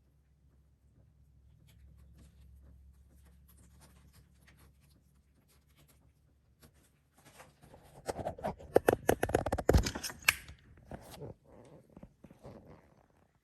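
Hands working at close range: a run of quick clicks, taps and rustles as small protector pieces are handled and fitted, busiest a little after the middle and thinning out near the end. A faint low hum sits underneath at the start.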